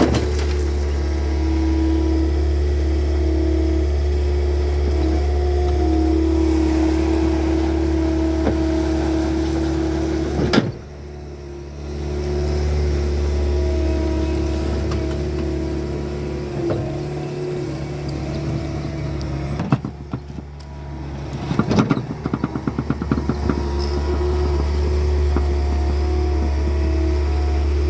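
Bobcat compact track loader's diesel engine running steadily at working throttle, a constant low drone with a steady whine above it. It drops away sharply twice, about a third of the way in and again about two-thirds in. Around the second drop comes a quick run of rattling clicks before the engine comes back up.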